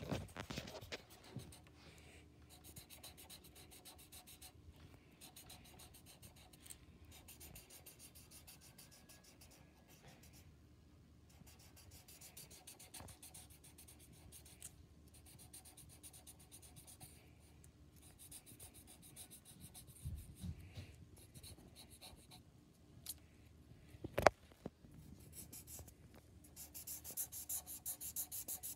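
Felt-tip marker scribbling on paper in rapid back-and-forth colouring strokes, faint and continuous, growing busier and louder near the end. One sharp tap about three-quarters of the way through.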